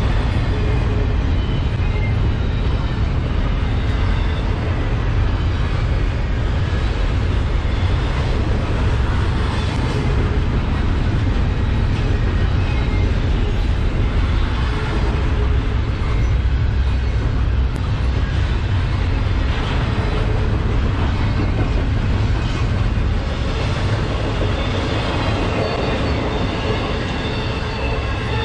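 Double-stack intermodal freight cars rolling past close by: a steady, heavy rumble of steel wheels on rail. Thin ringing tones rise over it near the end.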